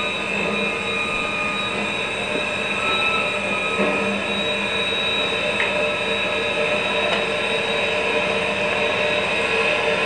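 A train running on rails: a steady rumble with steady high whining tones over it, growing slowly louder.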